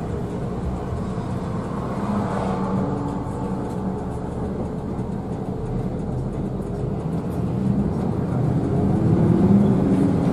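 Intercity bus's diesel engine running at speed with road and tyre noise, heard from inside the cabin, growing louder near the end.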